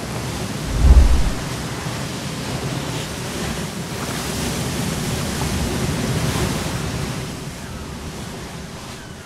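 Ocean surf washing and breaking, with some wind, swelling through the middle and fading near the end. A deep thud about a second in is the loudest sound.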